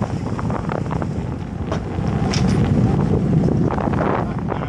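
Wind buffeting the microphone over the steady low rumble of a fishing boat's engine, with a few brief sharper sounds on top.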